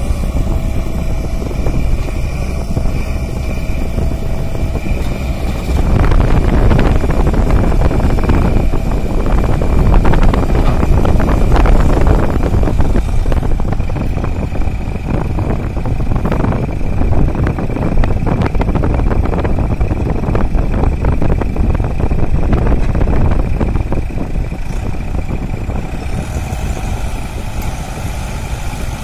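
Mahindra 595 DI tractor's diesel engine working hard under a heavily loaded trolley, enough to lift its front wheels. The engine gets louder about six seconds in and stays strained.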